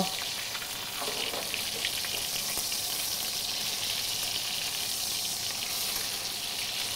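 Breaded chicken cutlets shallow-frying in oil in a sauté pan: a steady sizzle with fine crackling. The cutlets are golden brown and close to cooked through.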